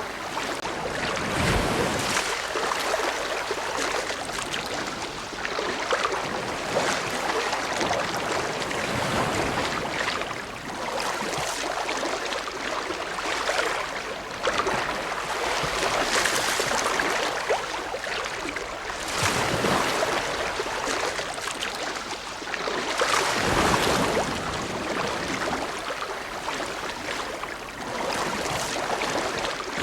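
Ocean waves: a continuous rush of surf that swells and eases every few seconds as waves break and wash in.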